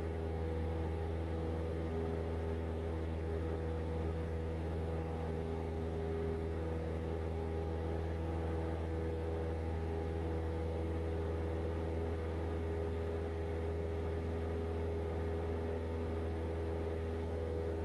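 Cessna 172 Skyhawk's piston engine and propeller droning steadily at climb power just after takeoff, a constant low hum with a few fixed higher tones above it.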